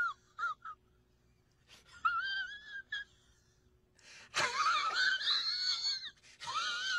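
A high-pitched, wavering squeal in five bursts, its pitch wobbling up and down, with short silences between.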